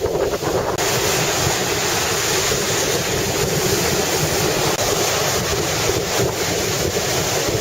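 Strong wind buffeting the microphone over the steady rush of surf, with a brighter hiss coming in just under a second in.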